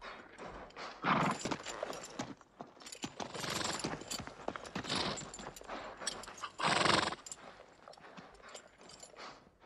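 A horse neighing several times, loudest about a second in and again near seven seconds, over hooves clopping and shifting.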